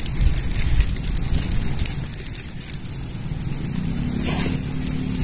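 Wind rumbling on the microphone, with a crackling hiss over it and a faint low hum that comes in about four seconds in.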